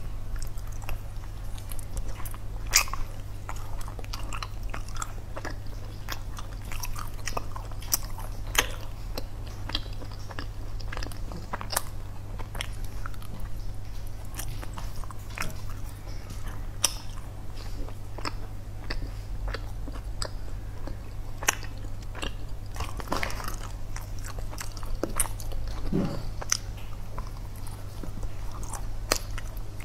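Close-miked biting and chewing of chewy dried baked sweet potato strips: many short, scattered wet mouth clicks and smacks, with a steady low electrical hum underneath.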